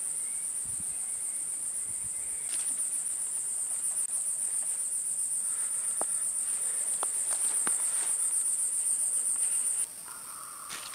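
Chorus of insects in the forest: a steady, high-pitched, finely pulsing shrill that drops away sharply about a second before the end, with a few faint clicks in between.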